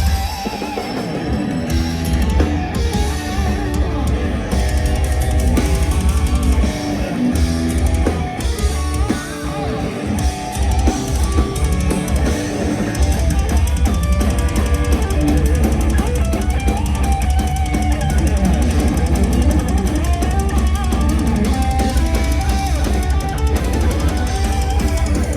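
Heavy metal band playing live: drum kit and electric guitars over bass. For the first half the low end is thin and broken, then about halfway in the full band with a heavy, steady bass drum comes back in.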